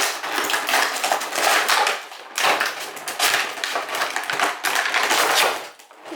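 Toy packaging being handled and pulled at: dense crinkling and crackling, with a short break about two seconds in.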